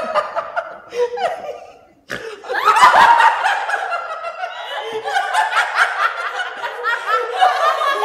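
Several people laughing together: a short first burst, a brief hush about two seconds in, then louder, continuous laughter to the end.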